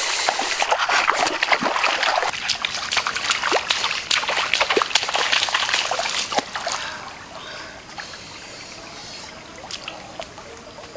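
Footsteps splashing through mud and puddles on a waterlogged dirt track: many quick steps for the first six or seven seconds, then fainter and sparser.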